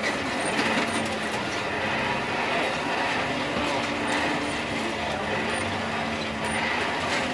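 Coal forge blower running steadily with a constant low hum, blowing air into the fire while an iron bar heats.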